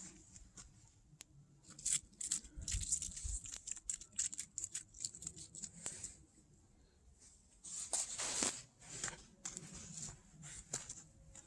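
Footsteps crunching irregularly over frozen ground and ice, with a quieter pause about six seconds in before the crunching picks up again.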